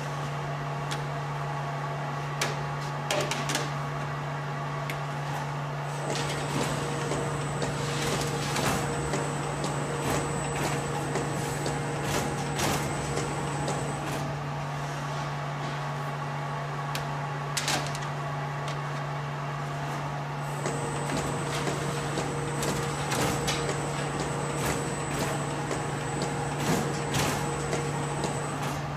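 Automatic cookie depositing machine running: a steady hum, with a high whine that comes in for two stretches of several seconds each, about six seconds in and again about twenty seconds in. Sharp clicks and clacks of the depositing mechanism and metal baking trays are scattered throughout.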